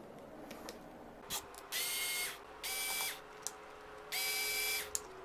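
Vigrue cordless electric screwdriver running in three short bursts, about half a second each, with a steady motor whine, as it backs screws out of a soldering iron's plastic handle.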